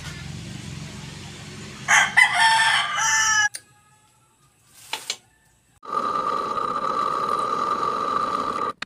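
A rooster crows loudly about two seconds in, and the crow is cut off abruptly. After a short quiet gap with a single click, a drill press motor runs with a steady whine that stops suddenly near the end.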